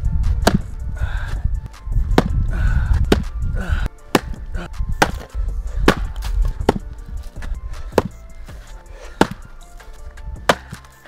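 A Fiskars splitting axe striking firewood, about a dozen hard, irregular chopping blows roughly a second apart.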